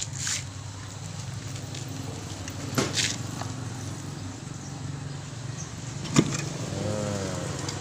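Steel shell halves of an Isuzu Panther brake vacuum booster being twisted apart by hand, with a few sharp metal clicks: two close together about three seconds in and a louder one about six seconds in, over a steady low hum.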